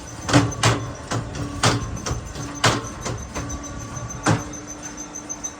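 Brick-making machine running: a steady motor hum with irregular sharp knocks, about seven in the stretch, the loudest a little after the start and about four seconds in.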